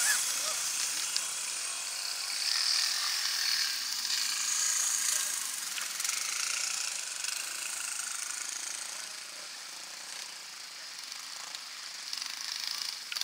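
Off-road motorcycle engines buzzing and revving, swelling and fading several times as bikes ride the course, with one growing louder near the end as it approaches.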